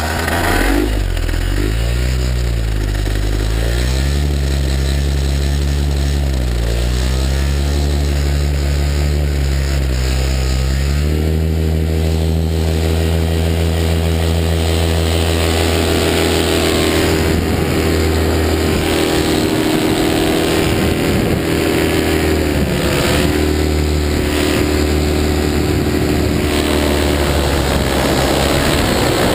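Paramotor engine and propeller running close by. It revs up and down unevenly for about the first eleven seconds, then jumps to a steady high throttle that holds through the take-off run.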